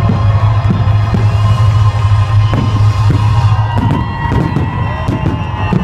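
Music with long held tones over a strong low hum, and from about two-thirds of the way in, fireworks popping and crackling.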